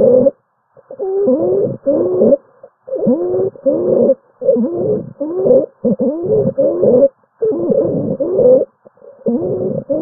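Stridor: a patient's noisy, pitched, wavering breath sounds from a narrowed upper airway, coming in quick pairs about every one and a half seconds, the sign of upper-airway obstruction.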